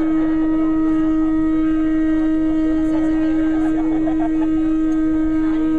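A blown horn sounding one long, loud note held at a steady pitch, dipping slightly in pitch as it ends just after this stretch.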